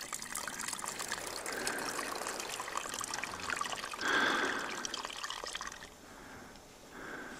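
Small mountain spring trickling steadily, a light running-water sound that cuts off about six seconds in, leaving a much quieter background.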